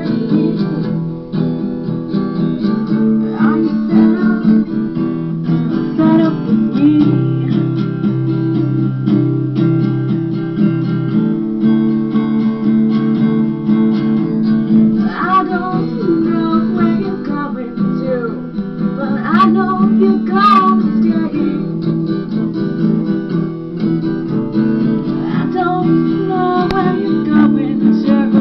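Acoustic guitar strumming the chords of a blues song in an instrumental stretch between sung lines. A higher melody that bends in pitch comes in over it in the second half.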